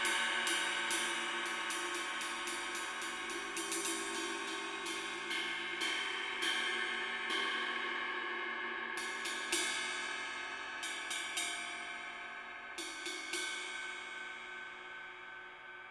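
Synergy Zircon cymbal struck repeatedly, quick light strokes at first and then a few scattered taps, its ringing wash slowly dying away over the last few seconds.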